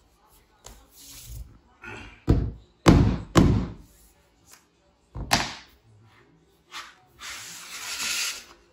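Rubber mallet knocking a Traffic Master laminate plank into place: three sharp knocks in quick succession a couple of seconds in, then one more about two seconds later. Near the end comes a longer scrape as a new laminate plank is slid into position.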